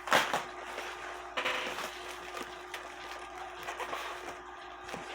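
Packing material and cardboard rustling and being handled as a box is unpacked. A burst of rustling comes right at the start and another about a second and a half in, with small knocks and clicks between, over a faint steady hum.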